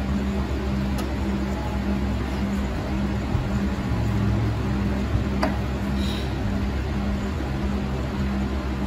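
Steady machine hum from a small electric motor, with a low tone pulsing about twice a second over a low rumble. A faint click about five and a half seconds in.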